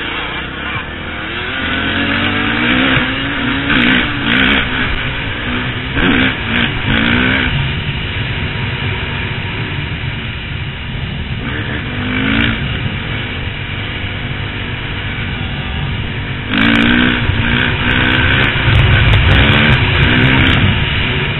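Off-road motorcycle or ATV engine revving up and falling back several times, over a steady low rumble, loudest in the last few seconds.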